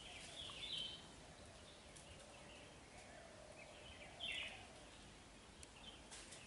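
Quiet outdoor ambience with faint bird chirps: a short run of calls about half a second in and another around four seconds in.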